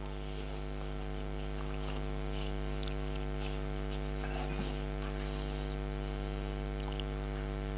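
Steady electrical mains hum: a low buzz with many evenly spaced overtones that holds unchanged through the pause.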